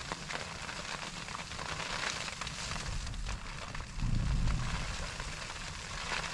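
Storm weather on a tent, heard from inside: a steady hiss of wind and precipitation against the fabric, with a low rumble of a gust about four seconds in.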